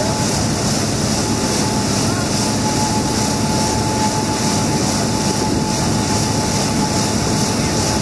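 Brush-roller potato washing machine running: rotating brushes churning potatoes under water sprays, an even, unbroken rush of machine and spray noise with a faint steady whine.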